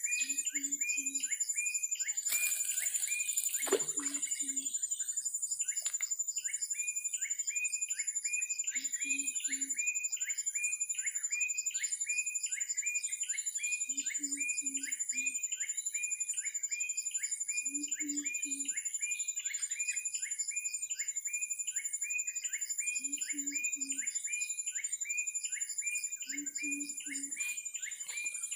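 Tropical riverside wildlife chorus: a repeated chirping call a couple of times a second, a steady high insect whine, and a low hooting call in short runs of three or four every few seconds.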